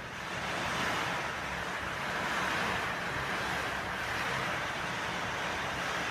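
Steady rainfall, an even hiss of falling rain that swells and eases slightly every couple of seconds.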